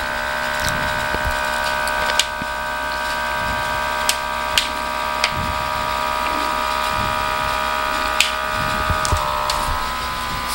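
Electric vacuum pump of an automatic vacuum fresh box running steadily, pumping the air out of the sealed food container. It makes a steady whine that drops slightly in pitch about nine seconds in, with a few light clicks scattered through it.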